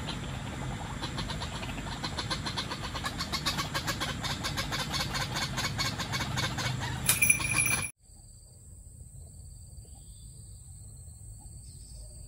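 White-breasted waterhen calling near the traps: a fast run of short clicking notes that grows louder, cut off sharply about eight seconds in. After that, insects keep up a steady high-pitched whine.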